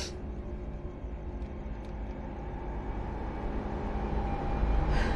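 Low rumbling drone of a tense film underscore, steady at first and slowly swelling louder, with a faint held tone coming through more clearly near the end.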